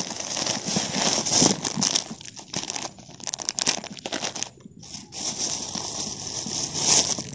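Plastic bags crinkling and rustling as a hand rummages in a white carrier bag and pulls out a smaller clear plastic bag of bread buns, with a brief lull a little past halfway.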